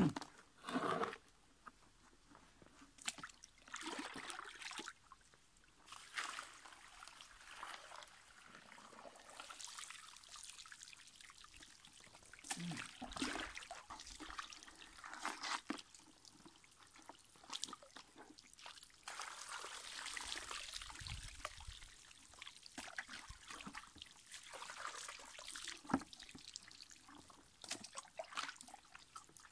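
Water poured from a plastic bucket over river sand and gravel in a gold-prospecting classifier sieve, trickling through into the pan below, in several pours with short pauses between; the bucket is dipped into the river to refill.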